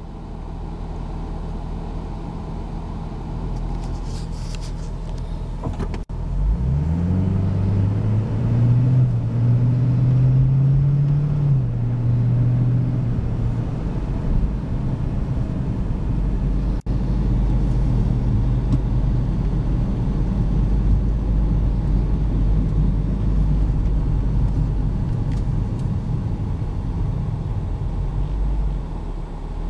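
2010 Ford Mustang GT's 4.6-litre V8 heard from inside the cabin while driving, over steady road rumble. About six seconds in, the engine note rises under acceleration, holds, and drops back around twelve seconds in. The car then settles into a steady low cruise.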